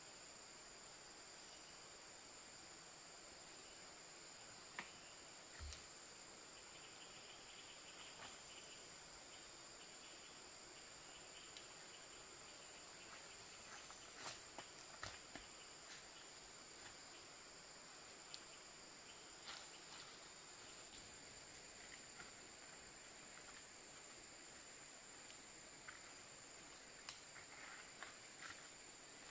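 Faint, steady high-pitched drone of insects, with scattered small clicks and taps.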